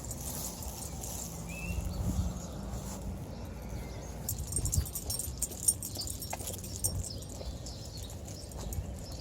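Footsteps on a walk, with scattered light clicks and thumps, and one short bird chirp about two seconds in.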